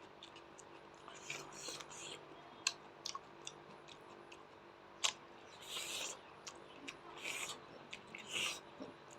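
Close-miked chewing and crunching of raw onion: short crisp crunches repeated several times, with a few sharp clicks between them.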